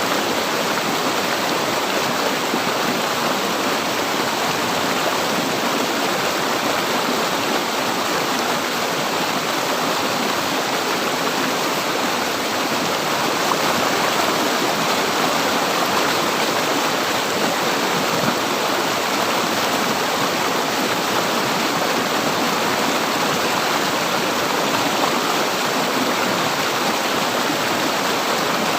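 River water flowing, a steady rushing noise that does not change.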